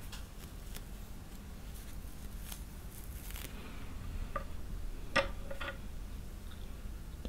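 Light clicks and taps of wooden-handled paintbrushes being handled and knocking together, with a couple of sharper clicks about five seconds in, over a steady low hum.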